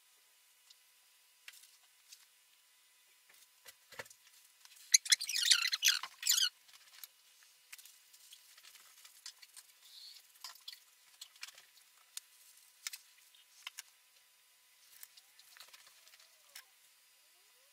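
Scattered faint clicks and small taps of objects being handled, with one loud scratchy rustle lasting about a second and a half, about five seconds in.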